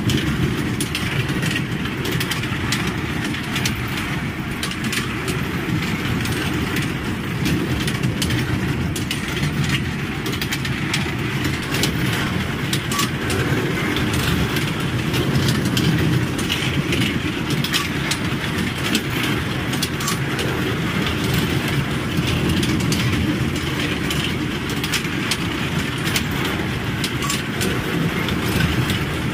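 Small kiddie-ride train running round its circular rail track: a steady rumble with frequent light clicks and rattles from the wheels.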